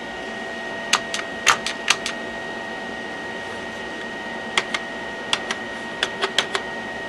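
Keys being pressed on an old AT-style computer keyboard: about fourteen separate clicks in small groups of two to four, over a steady background hum with a faint high whine.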